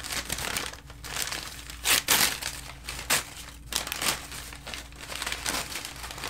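White packing paper crinkling and rustling as it is unwrapped from a packed plant by hand, in irregular bursts, loudest about two seconds in.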